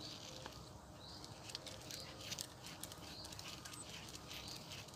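Faint, irregular ticks and scuffs of footsteps on a footpath laid with mesh mats, as a dog on a leash walks ahead, with a few faint chirps in the background.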